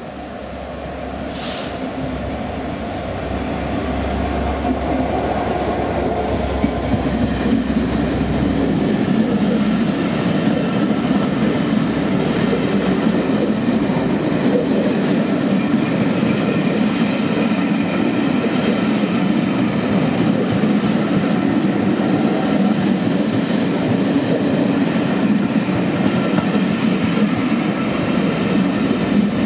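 Slow-moving Class 67 diesel locomotive, with its two-stroke V12 engine, hums as it draws in and passes, the sound building over the first several seconds. Then the Pullman coaches roll by close at hand with a steady rumble of wheels on rail. A short high screech comes about a second and a half in.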